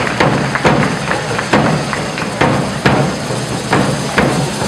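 Ball de diables drum beating a steady rhythm, about two strikes a second, over the hiss and crackle of the devils' hand-held fireworks.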